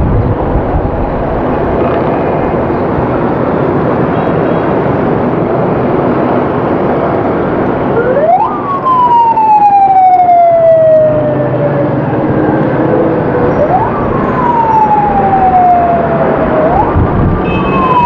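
Busy street traffic with motorcycles and passing vehicles. About eight seconds in, a siren starts wailing, each cycle rising quickly and then falling slowly, with three rises.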